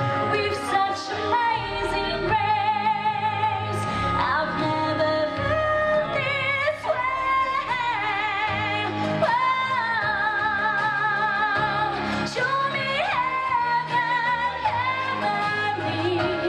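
A woman singing through a handheld microphone over instrumental accompaniment, holding long notes with wide vibrato and sliding between them.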